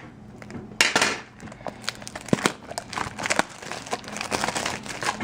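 Plastic wrapping on a trading card pack crinkling and crackling as it is handled and torn open, with irregular sharp clicks and rustles, loudest about a second in and again over the last two seconds.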